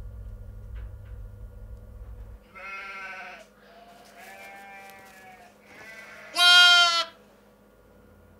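Newborn lamb bleating about four times, the last call near the end the loudest and longest. A low hum sounds under the first couple of seconds and cuts off suddenly.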